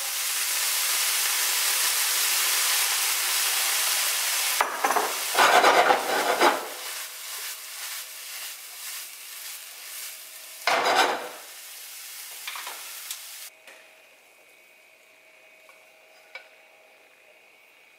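Soy sauce hitting a hot nonstick pan of cauliflower fried rice: a loud, steady sizzle. The rice is stirred and scraped in the pan twice while the sizzle dies down, and it stops about two-thirds of the way through.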